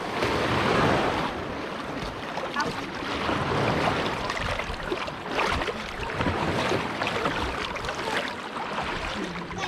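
Choppy seawater splashing and lapping in uneven slaps, with wind buffeting the microphone.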